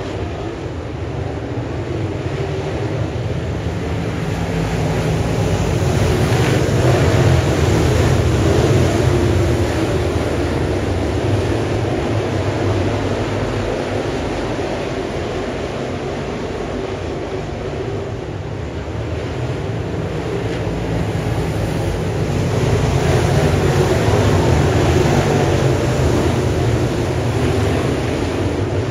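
Dirt late model race cars with GM 604 crate V8 engines running laps on the oval. Their sound swells as they come past and fades as they go around, about every 16 seconds.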